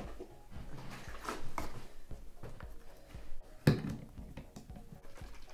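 Small clicks and knocks of a plastic trigger spray bottle being handled, its sprayer top fitted and screwed on, with one sharper knock about two-thirds of the way in.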